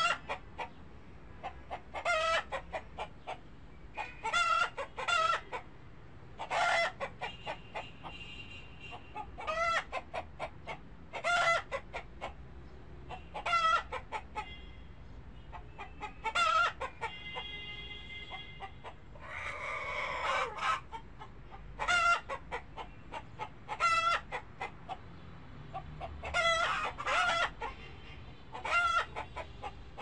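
Chickens clucking in short clusters of calls about every two seconds, with a longer drawn-out call around the middle, likely a rooster crowing, and a harsher squawk just after.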